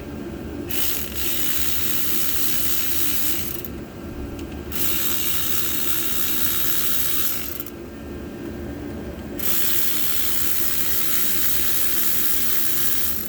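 Ratchet wrench clicking rapidly as it backs out the bolts of a water outlet housing, in three runs of about three seconds each with short pauses between.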